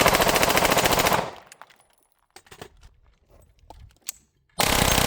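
9 mm AR pistol with a super-safety trigger firing a very rapid string of shots, nearly full-auto, that stops about a second in. After a pause with a few faint clicks, a second rapid string starts near the end.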